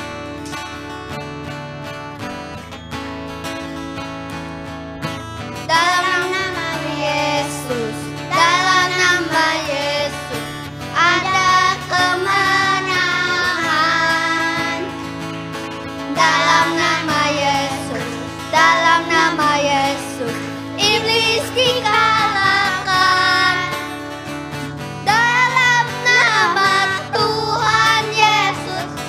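An acoustic guitar plays alone for the first few seconds. Then young boys sing together over it in Indonesian, a lively children's worship song in short phrases.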